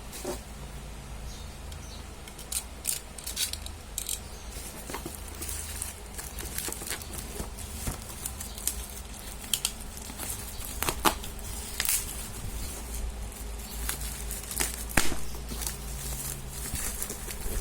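Packaging being handled and opened for unboxing: scattered crinkles and sharp clicks over a low steady hum.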